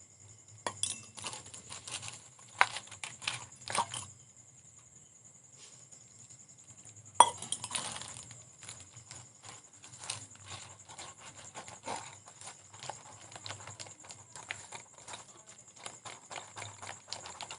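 Thick gram-flour batter being beaten by hand in a bowl: a few scattered knocks, then from about seven seconds in a fast, uneven run of wet taps and clicks. Crickets trill steadily behind.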